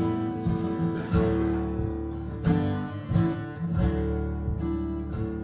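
Acoustic guitar playing a song's instrumental introduction, chords struck every second or so and left to ring.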